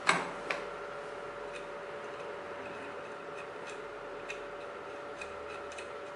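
A sharp click as the microscope eyepiece assembly is seated on the slit lamp, a smaller click about half a second later, then scattered light ticks as the small locking screw on top is turned. A faint steady hum runs underneath.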